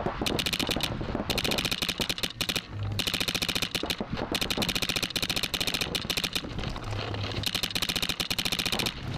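Paintball marker firing in long, very rapid strings of shots, several bursts of one to three seconds each with brief breaks between them.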